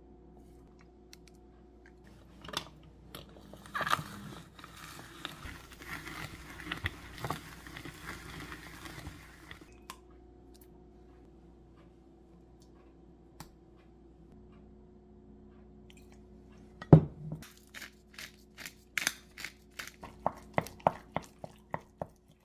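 Kitchen sounds of mixing a Korean chili seasoning paste in a glass measuring cup: ingredients spooned and poured in, then the thick paste stirred with a wooden spoon. Near the end the spoon scrapes and knocks against the glass in quick strokes, about three a second, after one loud knock.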